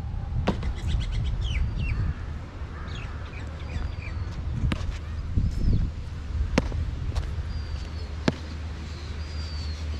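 Small birds chirping faintly in the trees over a steady low rumble, with a few sharp clicks spread through it.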